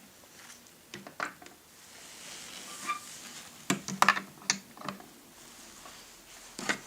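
Small plastic toys being handled: a scatter of light clicks and knocks, several in quick succession near the middle, as toy figures are set into a toy school bus.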